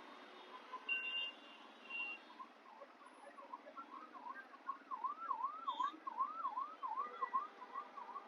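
Ambulance siren in a fast yelp, its pitch swooping up and down about three times a second and growing louder past the middle. Two short high beeps sound about a second and two seconds in, over a low hum of traffic.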